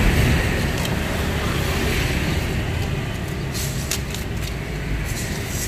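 Road traffic noise from passing motorbikes and vehicles, a steady rush. A few short, light clicks come in around the middle.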